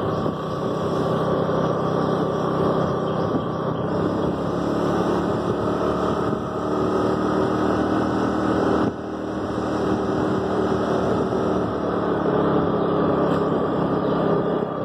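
A TVS Jupiter scooter's engine running steadily as it is ridden along at cruising speed. The level dips briefly about nine seconds in.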